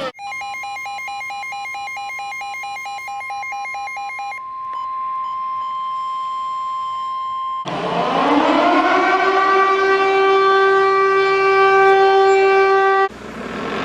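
Emergency alert alarm tones. A rapidly warbling two-tone beep runs over a steady tone for about four seconds, then the steady tone continues alone. About seven and a half seconds in, a civil defense siren winds up in pitch and holds steady, then cuts off near the end as another siren starts rising.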